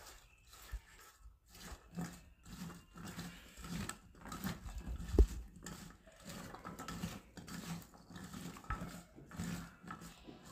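Hands mixing chicken strips with spice powder in a bowl: irregular squishing and handling noises, with one sharper knock about five seconds in.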